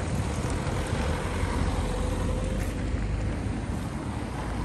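Cars driving past on a snow-covered town street, their engines and tyres making a steady noise. Wind rumbles on the microphone.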